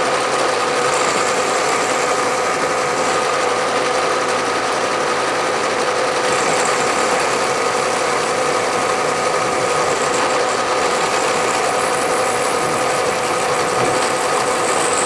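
Milling machine running a 1/4-inch end mill that is cutting a slot in a 5/8-inch round metal workpiece: a steady hum of cutting and spindle with a few constant tones, holding at one level, as the cutter takes a pass about 100 thousandths deep.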